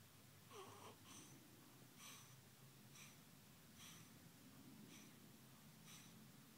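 Faint, quick nasal breathing of a three-week-old baby: soft snuffles about once a second, with one brief falling squeak about half a second in.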